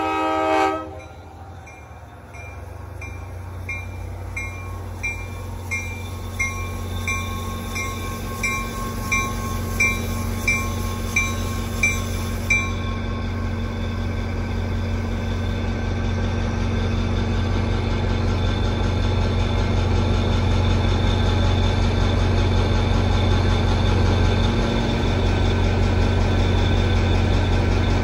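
A diesel locomotive's horn cuts off under a second in. A grade-crossing bell then dings about twice a second and stops about halfway, while the locomotive's engine rumbles steadily as it pulls in and idles alongside.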